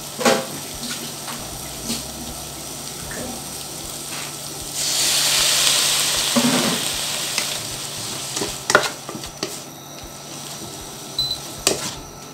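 A little water added to a hot non-stick wok of stir-fried cabbage and egg makes a loud hiss about five seconds in, which fades over about two seconds. Otherwise the pan sizzles quietly, and a wooden spatula clicks and scrapes against the wok a few times.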